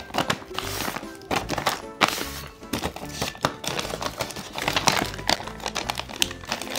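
Background music with a steady beat, over the crinkling, tapping and clicking of paper being handled as a homemade paper blind bag is opened.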